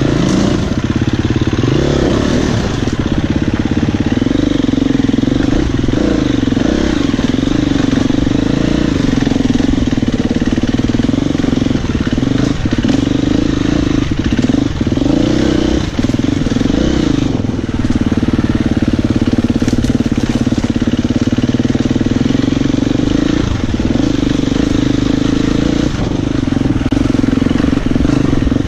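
A Husqvarna FE 250 enduro motorcycle's single-cylinder four-stroke engine running at low to middle revs, its pitch rising and falling as the throttle is worked over rough ground. Short knocks from the bike over rocks are scattered through.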